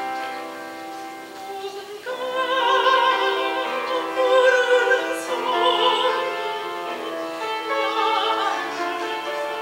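A soprano singing a Korean art song with wide vibrato, accompanied on a Samick grand piano; the piano plays alone at first and the voice comes in about two seconds in.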